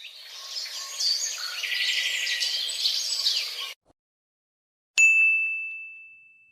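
Birds chirping in a busy chorus of high calls that cuts off abruptly. After a moment of silence comes a single bright ding, a bell-like tone that rings and fades over about a second and a half.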